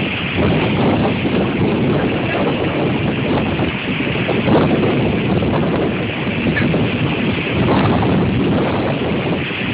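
Storm wind from Hurricane Irene rushing and buffeting the phone's microphone: a loud, steady roar of noise that swells and eases slightly.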